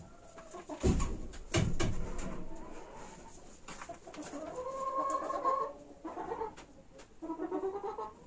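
Poultry calling in a barn: drawn-out calls about halfway through and again near the end, after two dull low thumps in the first two seconds.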